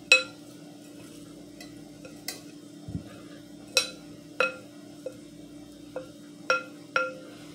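Wooden spoon stirring bread cubes in a glass mixing bowl, knocking against the glass about eight times at uneven intervals, each knock ringing briefly. A steady low hum runs underneath.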